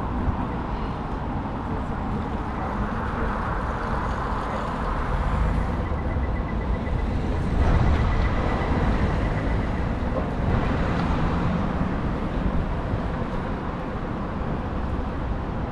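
Busy city street ambience: steady road traffic noise, swelling briefly louder as a vehicle passes about eight seconds in.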